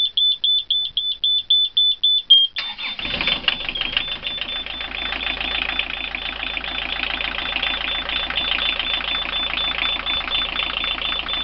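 A Beta Marine panel's warning buzzer beeps rapidly, about five times a second. About two and a half seconds in, the Beta 1505 three-cylinder marine diesel cranks briefly and catches, then runs steadily with the buzzer still beeping over it.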